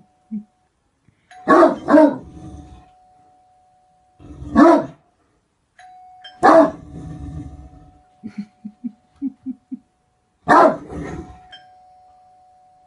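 Great Dane barking: deep single barks a few seconds apart, starting with a quick double bark, five barks in all, with a run of short low sounds between the last two.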